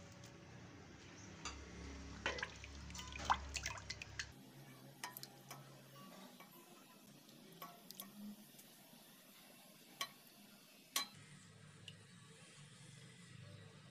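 A spoon stirring a thin yogurt and gram-flour batter in a steel pot: faint sloshing of the liquid with scattered clicks of the spoon against the pot, a cluster about two to four seconds in and two sharp ones near the end.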